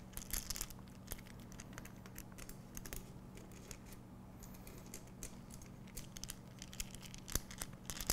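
Small clicks and rattles of handled hardware: 90-degree brackets with their preloaded screws and nuts being fitted into the slots of an aluminium drive rail. The clicks are light and irregular.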